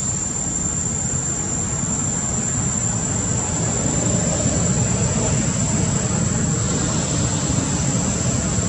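A steady, high-pitched insect drone over a loud, steady low rumble.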